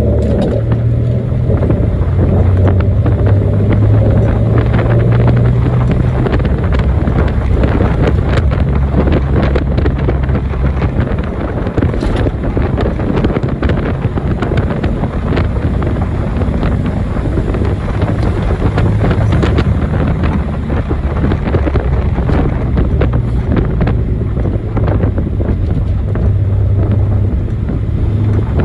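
Nissan 300ZX (Z31) engine running on the road: a steady low drone under road and wind noise. The engine note drops about eleven seconds in and comes back up near the end.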